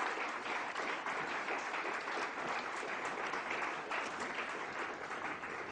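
An audience clapping steadily, the applause easing off slightly toward the end.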